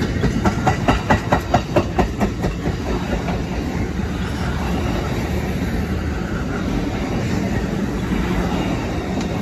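Amtrak bilevel Superliner passenger cars rolling past close by at speed. A rapid, even run of wheel clacks over the track joints for the first couple of seconds, then a steady rumble of steel wheels on rail.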